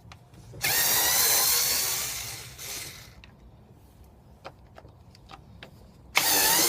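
Cordless drill-driver whirring as it backs screws out of a Dacia Sandero's plastic air filter housing: one run of about two seconds, then a second run starting near the end, its motor whine shifting in pitch, with small clicks in between.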